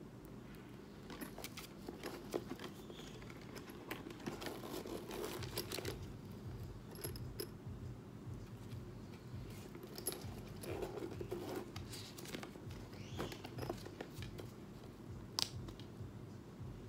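Michael Kors Kimberly satchel being handled and opened: rustling and crinkling of the plastic wrap on its handles, with light clicks and jingles of its metal hardware, and one sharp click near the end.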